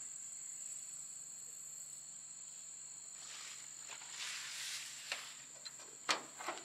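Insects trilling steadily in a high, even tone, with soft rustling about halfway through. About six seconds in, a sharp click and a few lighter clicks as the cab door latch of a 1973 Dodge Big Horn truck is worked open.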